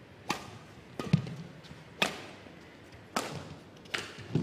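Badminton rally: sharp cracks of rackets striking the shuttlecock, about one a second as the two players trade shots. A heavier low thud comes a little after one second in and another near the end, from players' footfalls on the court.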